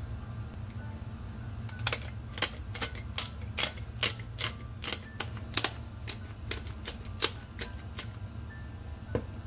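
Hand salt and pepper grinder being twisted over raw steaks: a run of sharp, irregular clicks, about two to three a second, starting about two seconds in and stopping near eight seconds, with one last click near the end.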